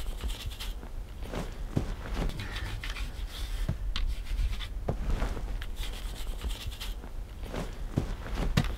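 A stiff brush scrubbing sandstone climbing holds, in short scratchy strokes, over a steady low rumble.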